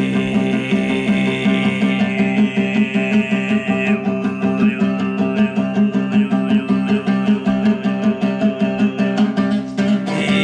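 Altai throat singing (kai): a low, steady droning voice with a high whistling overtone, over a plucked string instrument struck in a quick, even rhythm. The high overtone fades about four seconds in and comes back near the end.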